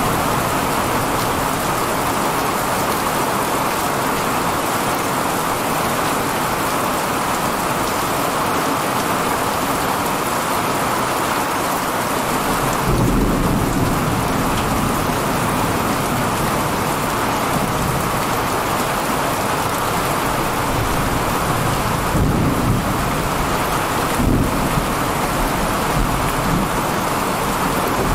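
Heavy, steady rain pouring down during a thunderstorm, with deep rolls of thunder starting about halfway through and rumbling again several times near the end.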